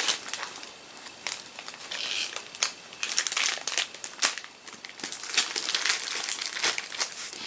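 Plastic packaging crinkling as it is handled, a run of short, irregular crackles with a slightly quieter spell about a second in.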